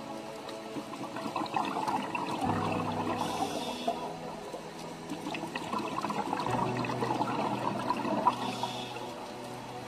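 Slow ambient background music: low held notes that change about every four seconds, over a grainy, bubbling watery hiss.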